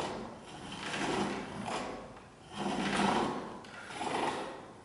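Turning chisel cutting a wooden handle on a foot-driven pole lathe: a scraping cut that swells and fades about once a second with each treadle stroke, as the cord spins the workpiece back and forth under the tool.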